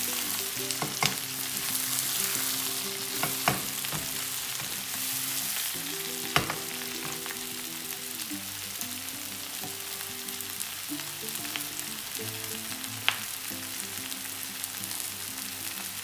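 Sliced bell peppers and onions sizzling in a hot stone-coated wok as they are stir-fried with a wooden spoon. The spoon knocks sharply against the pan a few times, loudest about six seconds in.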